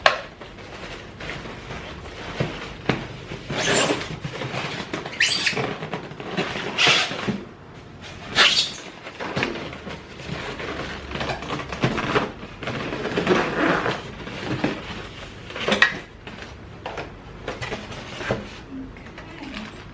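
Packaging being handled while a sewing machine is unboxed: irregular rustling, scraping and scratchy noises with sharp knocks and clicks, loudest about a second in, around eight and a half seconds, and near sixteen seconds.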